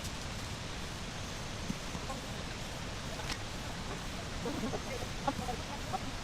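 Steady rushing noise of a waterfall, with faint short sounds scattered over it, more of them from about four seconds in.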